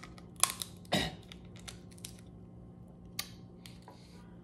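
Crab leg shell cracking and crunching as it is bitten and broken open: a few sharp cracks about a second in, the loudest among them, and one more near the end.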